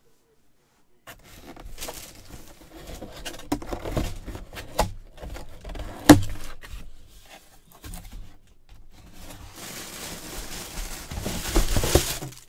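A cardboard helmet box is handled and a replica football helmet in a plastic bag is pulled out of it: scraping and rustling of cardboard and plastic, starting after about a second of quiet, with a sharp knock about six seconds in and loud plastic crinkling near the end.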